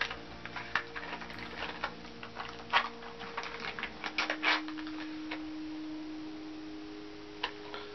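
Clear plastic snack packaging crinkling and clicking as it is handled and opened, in irregular sharp crackles with a louder crack about three seconds in.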